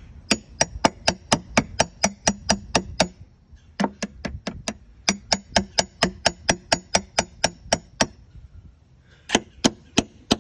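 A hammer striking a metal tool wedged between a boat transducer and the hull, to break the transducer free of its 5200 adhesive bond. Quick sharp taps, about four a second, each with a light metallic ring. The taps come in runs with short pauses about three seconds and eight seconds in.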